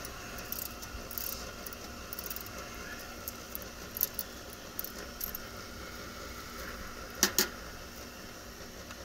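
Light metallic clinks and clicks of hand tools and fittings being handled, with two sharper clicks about seven seconds in, over a steady machine hum.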